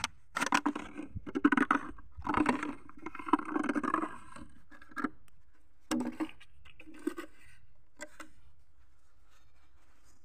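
Thin plastic drink bottles crinkling and scraping as the cut pieces are handled and pushed together, in several bursts over the first four seconds. After that come a few short, separate plastic knocks and rustles.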